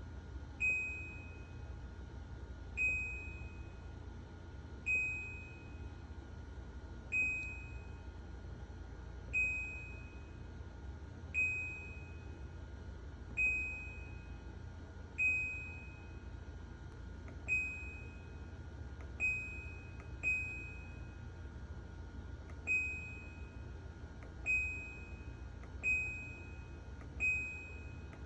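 White-Westinghouse top-load washing machine's control panel beeping: about fourteen short, high electronic beeps at uneven intervals of one to two seconds, over a steady low hum.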